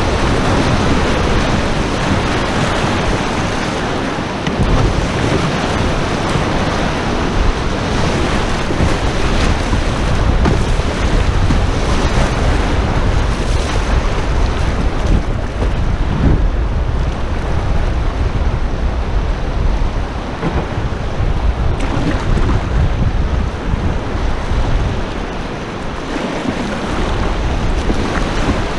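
River rapids rushing and splashing around a canoe's bow, a steady loud roar of whitewater, with wind buffeting the microphone.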